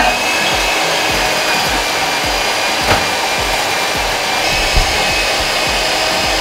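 Moulinex Supermix 130 electric hand mixer running steadily, its beaters whisking egg whites in a glass bowl, with a constant high motor whine. Two brief knocks stand out, about three and five seconds in.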